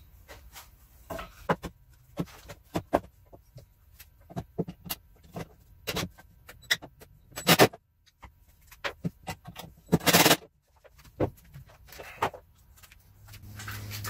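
Wooden boards knocking, clattering and scraping as they are handled and fitted under a wooden workbench: scattered irregular knocks, with a sharper clack a little past halfway and a longer scraping burst about ten seconds in.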